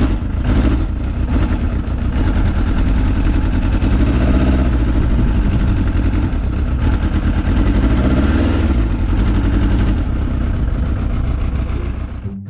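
Yamaha motorcycle engine running steadily at idle. It cuts off abruptly near the end.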